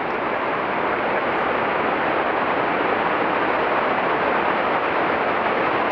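Steady wind noise rushing over the action camera's microphone, an even hiss with no breaks.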